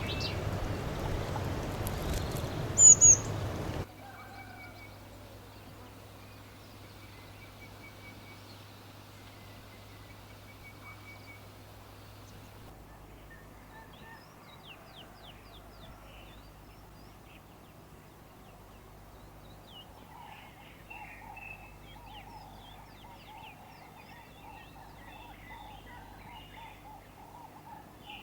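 Birds calling. Over a loud rushing background, two very loud sharp calls come just before three seconds in. After an abrupt change at about four seconds, quieter scattered chirps and whistles follow, becoming busier chatter from about twenty seconds, over a steady low hum.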